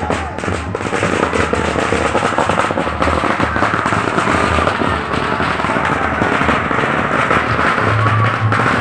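A string of firecrackers crackling with dense, rapid pops, over music with a stepping bass line.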